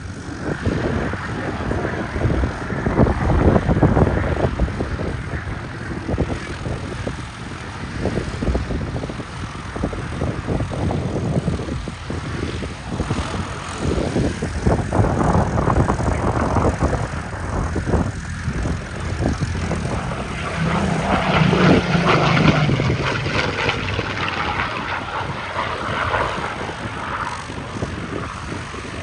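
Piston-engined propeller aircraft flying past, its engine droning and swelling to its loudest a little over two-thirds of the way through before easing off.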